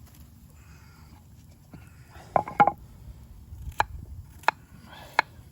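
Knife chopping vegetables on a board: a short clatter just before halfway, then three sharp single chops about two-thirds of a second apart.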